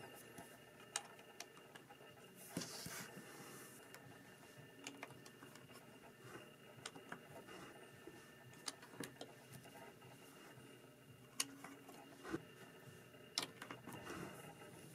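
Plastic Lego bricks clicking as they are handled and pressed onto the build: scattered sharp clicks with a brief rustle about two and a half seconds in, over faint room tone.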